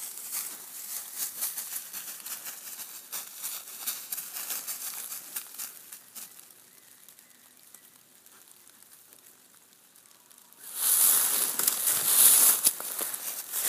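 Dry fallen leaves crunching and rustling underfoot as a tracking dog and its handler move through the forest litter, a dense crackle for the first several seconds. After a quieter stretch, a louder, closer burst of rustling and crunching comes about eleven seconds in.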